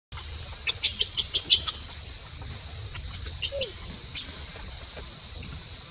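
Short, sharp, high-pitched animal chirps: about seven in quick succession in the first two seconds, a few more later and one loud one just past the middle, over a steady high hiss.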